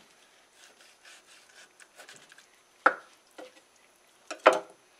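Kitchen knife cutting through a flounder on a wooden cutting board: soft scraping and sawing of the blade through skin and flesh, with two sharp knocks against the board, about three seconds in and near the end.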